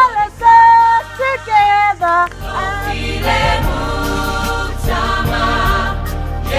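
A girls' choir singing: a lead voice sings held notes with short breaks for the first two seconds, then the full group comes in with sustained harmony.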